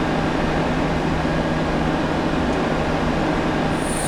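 Steady rushing hum of a Boeing 737-800 cockpit on the ground, the airflow and machinery noise of the parked or taxiing airliner, with a constant low tone under it.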